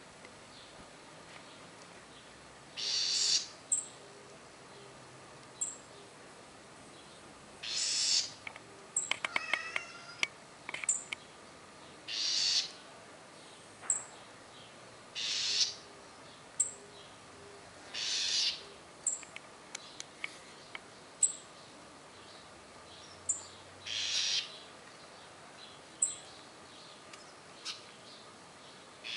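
A bird in the tree calling: a harsh, rasping call repeated every few seconds, with short high chirps between the calls and a quick run of clicks about nine seconds in.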